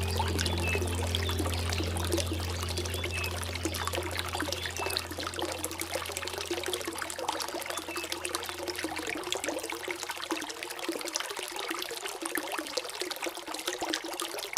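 Flowing water trickling and splashing, with a low held music tone fading out over the first half.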